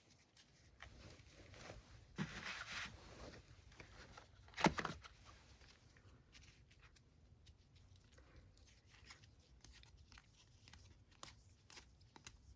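Photo cards and their packaging being handled: a rustle about two seconds in, one sharp clack a little after the middle, then light taps and ticks of the cards.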